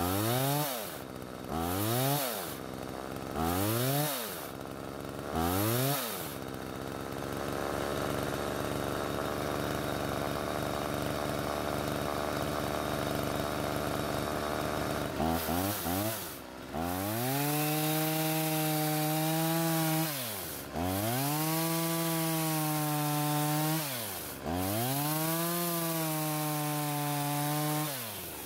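McCulloch Mac 3200 two-stroke chainsaw revved in four quick blips of the throttle, then running steadily for about ten seconds. It then goes to full throttle three times for a few seconds each, cutting into a dead log, with the engine dropping back briefly between cuts.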